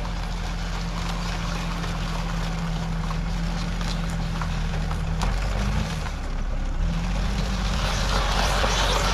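Hägglunds Bv206 tracked all-terrain carrier driving up out of a wet ditch onto a bank, its engine running steadily under load. The engine note dips and picks up again about five to six seconds in, and the sound grows louder near the end as the vehicle climbs closer.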